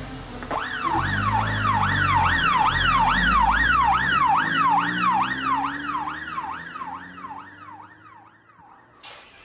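Police car siren on a fast yelp, sweeping up and down a little over twice a second. It starts about half a second in and fades away over the last few seconds, with a car engine running low underneath.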